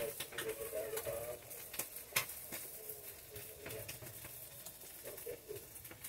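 A bird cooing in the background, a low wavering call in the first second and a half and again faintly near the end, with a few sharp clicks in between.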